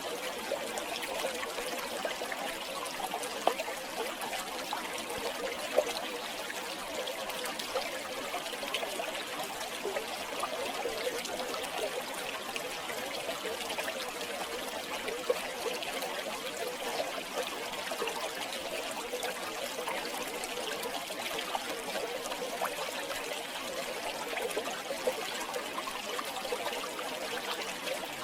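River water flowing and trickling steadily over rocks, with small splashes and gurgles throughout.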